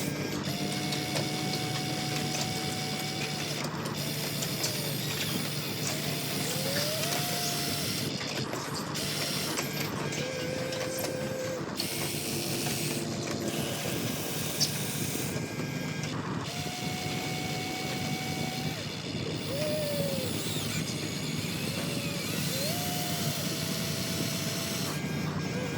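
Radio-controlled model excavator's small electric motors and gears whirring steadily, with a whine that rises, holds and falls again several times as the arm and tracks work.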